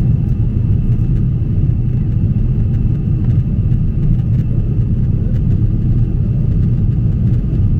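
Jet airliner cabin noise in flight: the engines and rushing air make a steady low roar, with a faint thin whine held above it.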